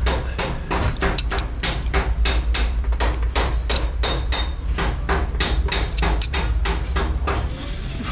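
Rapid, even metallic clicks, about four or five a second, from a hand tool working on an Isuzu diesel engine's cylinder head, with a steady low hum underneath.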